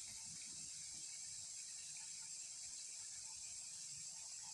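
Quiet outdoor ambience: a steady high-pitched hiss with a thin continuous high tone over it, and only faint soft sounds lower down.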